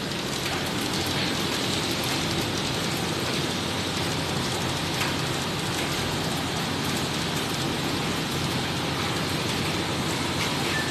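Steady whirring noise of a room full of washing machines and tumble dryers running, with a faint low hum underneath.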